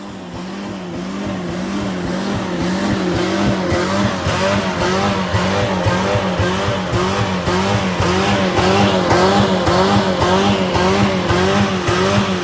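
Car engine run hard at high revs, its pitch swinging up and down about twice a second and growing louder over the first few seconds.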